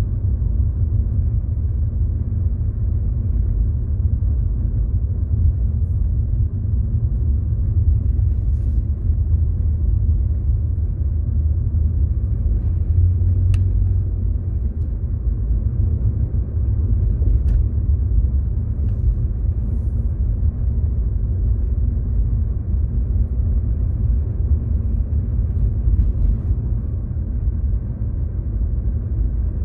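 Car on the move: a steady low rumble of road and engine noise, with a few faint ticks.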